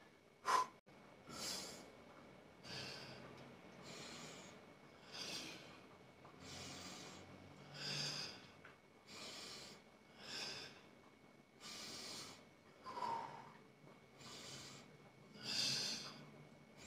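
A man breathing hard after a set of dumbbell biceps curls: a steady run of short, noisy breaths, one a little more often than every second and a half.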